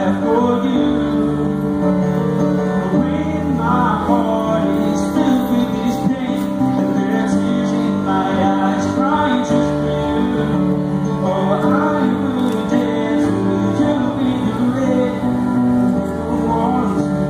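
A grand piano played live with a man singing over it through stage speakers, held notes ringing steadily.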